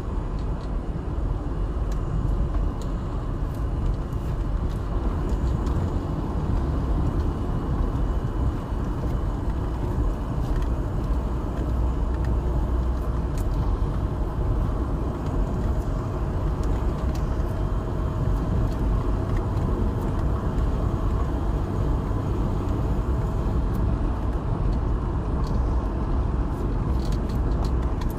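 Car driving at road speed, heard from inside the cabin: a steady rumble of engine and tyre noise.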